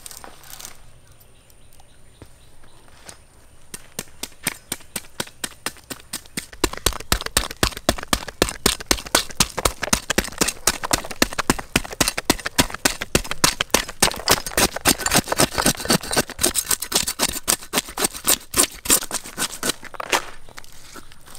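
Rapid, repeated sharp knocks of food preparation, about four or five a second. They start sparse, settle into a steady run about six seconds in, and stop near the end.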